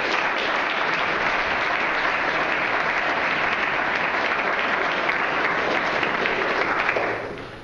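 Audience applauding, steady and then dying away about seven seconds in.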